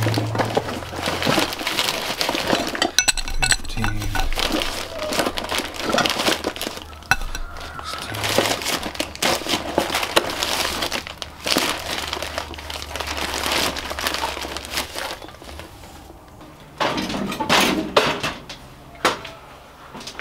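Heavy-duty vinyl-coated steel utility hooks being handled and shifted in a pile on hay: repeated metal clinks and clatter with rustling, louder near the end.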